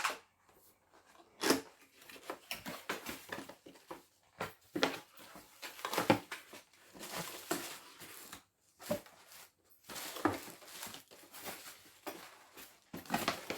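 Packaging being handled during unboxing: irregular rustling and crinkling of wrapping, with scattered knocks and clicks.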